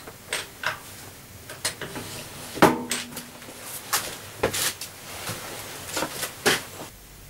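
Irregular metal clicks and knocks from hand work on a milling machine's slotting set-up and carriage handwheel, with the spindle stopped. The loudest, a clank about two and a half seconds in, rings briefly.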